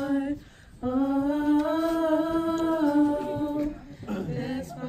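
Young women's voices singing a cappella, holding long wordless hummed notes: a long note rising slightly after a short break about half a second in, then a lower note near the end.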